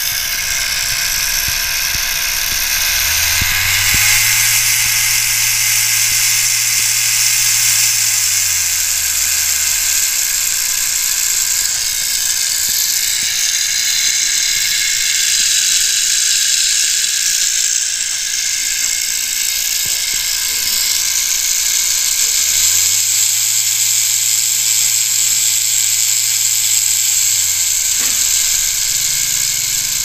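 Rotary tattoo machine running on a cheap DC motor speed controller module: a steady mechanical buzz and whir from the motor and cam driving the needle bar. Its pitch rises and then falls back twice, once about 3 seconds in and again a little past 20 seconds.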